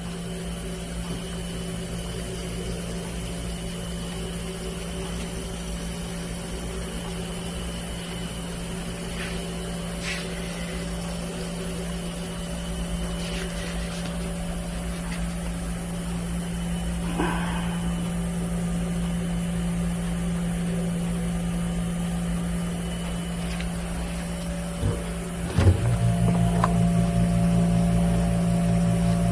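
Steady electric hum of a running appliance motor, with a few light clicks. About 26 seconds in there is a knock, then a second, deeper hum joins and the sound grows a little louder.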